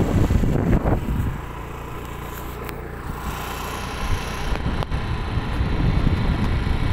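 Motor vehicle travelling along a road: engine and road rumble, loud and rough for the first second or so, then settling to a steadier, quieter hum before growing rougher again about four seconds in.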